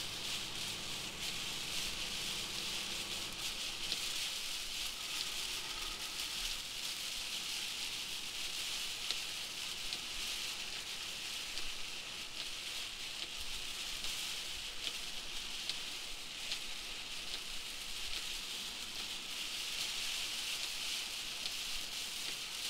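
Heavy rain beating on a moving vehicle's windshield and roof, heard from inside the cab: a steady hiss full of small ticks from the drops. A faint low hum is under it at first and drops away about three seconds in.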